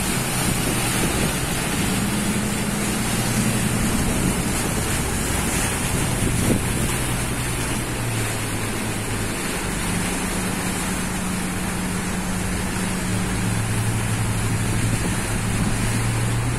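Pilot boat's engines running as it runs alongside a ship, over the rush of its wake and wind buffeting the microphone. The engine hum steps to a new pitch a few times as the boat adjusts its speed.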